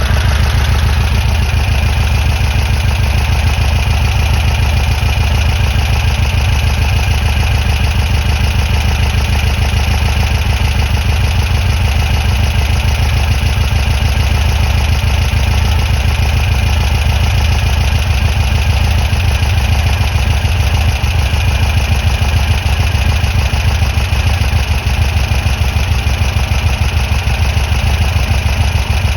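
Air-cooled VW flat-four engine idling steadily, with an even low pulsing.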